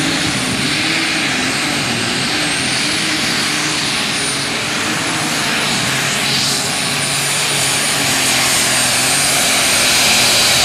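Super stock pulling tractor's engine running at full power as it drags the weight sled, its pitch wavering up and down with a thin high whistle above it. It grows a little louder near the end.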